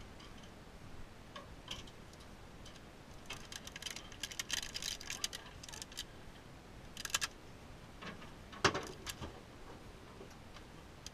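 Scattered clusters of small clicks and rattles, with a sharper knock about eight and a half seconds in: handling noise from fishing gear being worked in a small metal boat.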